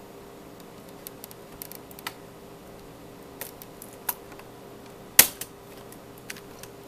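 Irregular small clicks and taps of plastic laptop casing being pried and handled, with one louder sharp snap about five seconds in, over a faint steady hum.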